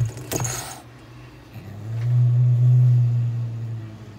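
Japanese domestic cat giving a short hiss about half a second in, then a long low growl that swells and fades toward the end: a defensive warning.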